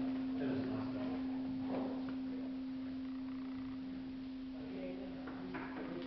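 A steady, unchanging hum on one pure low note, with faint voices murmuring in the background.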